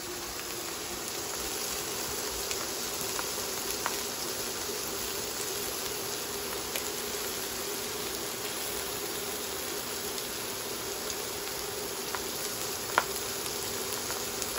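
Pork chops sizzling in hot oil in a cast-iron skillet, a steady fry with a few sharp pops of spattering fat, one louder pop near the end. A steady hum runs underneath, typical of an induction cooktop heating cast iron.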